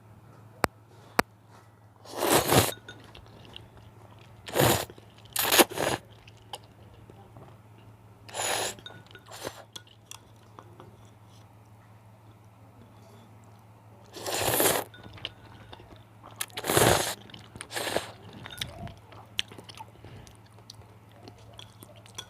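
Close-miked eating sounds of spicy cheese noodles: about eight loud, short bursts of mouth noise spread through, with two sharp clicks in the first second or so. A faint steady low hum runs underneath.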